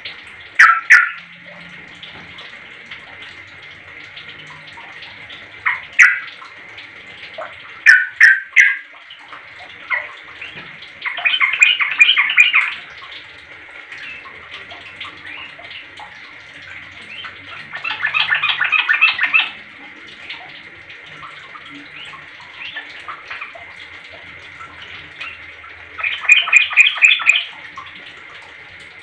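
Yellow-vented bulbul (trucuk) calling: short sharp notes near the start, around 6 s and three in quick succession around 8 s, then three longer rapid chattering phrases, all over a steady hiss like running water.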